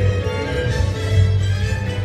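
Orchestral backing track for a musical-theatre song playing, strings over a steady bass, with no singing.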